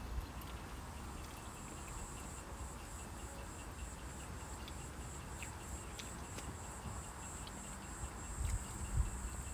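Insects chirring steadily in a high, even pulse in the background, with a couple of low bumps near the end.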